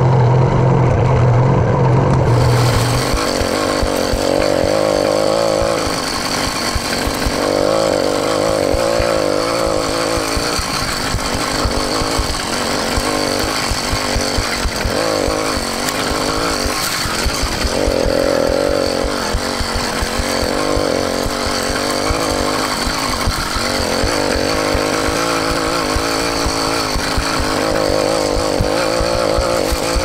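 YD100 two-stroke engine on a motorized bicycle running with its stock muffler, speeding up and easing off every few seconds under changing throttle.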